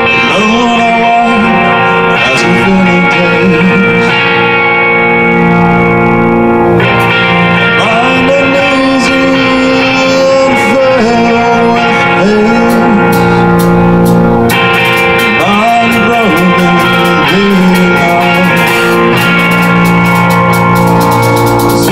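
Extreme progressive metal band playing live: electric guitars carry a sustained melodic line with bending, sliding notes over bass and drums.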